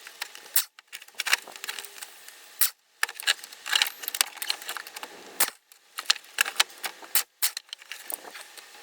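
Irregular metallic clinks and rattles of tools and bolts being handled around an engine's water pump.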